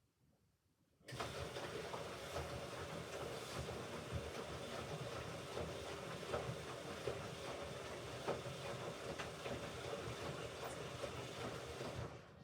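Hoover Ecologic Computer Washer 1300 running a stage of its rinse cycle: a steady mechanical rushing noise with light clicks that starts abruptly about a second in and stops sharply near the end.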